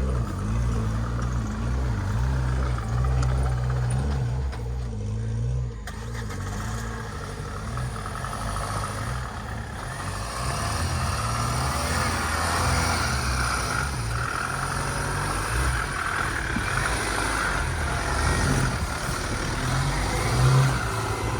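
Off-road vehicle's engine running steadily on a rough track, easing off briefly about five seconds in.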